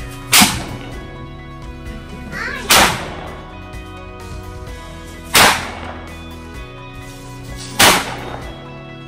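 3.5-inch paper sound crackers going off: four sharp bangs about two and a half seconds apart, over background music.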